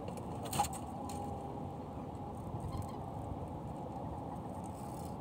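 Gill net being hauled by hand into a small boat: a few faint clicks and one sharp knock about half a second in, over a steady low rumble.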